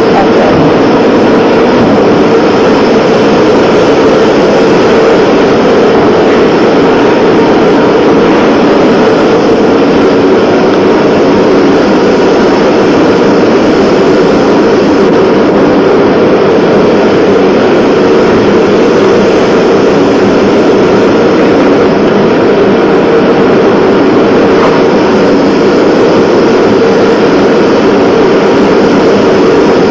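A loud, steady mechanical drone that does not change, with no separate knocks or clicks.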